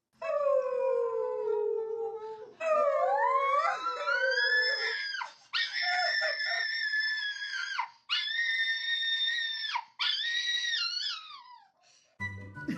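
A dog howling: a run of long pitched howls about two seconds each. The first falls slowly, then several overlap and glide up and down, and the last ones are held nearly level.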